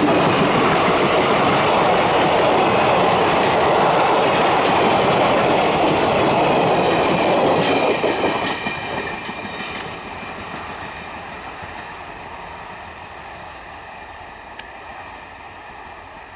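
Indian Railways ICF passenger coaches rolling past at speed, loud until the last coach goes by about eight seconds in, then fading steadily as the train recedes.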